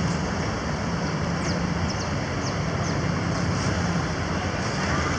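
Street traffic in a jam: idling car and truck engines give a steady low hum over a general roadway din. A few short high chirps sound in the middle.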